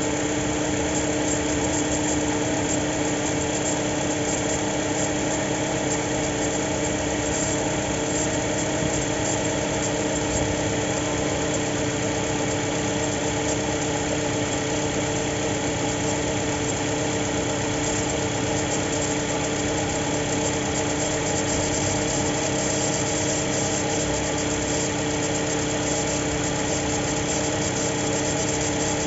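FAW X80 engine idling steadily, with a strange noise from the alternator belt drive: several steady tones held throughout. Its cause is not known.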